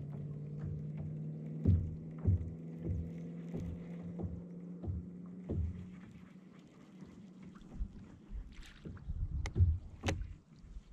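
Small waves slapping against a plastic kayak hull in a rhythm of low knocks about every half second or so, over a steady low hum for the first six seconds. A few louder knocks near the end.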